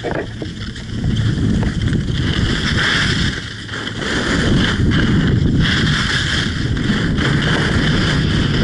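Wind buffeting the microphone of a pole-held camera while skiing downhill, with the skis hissing and scraping over the snow in swells that ease briefly about three and a half seconds in.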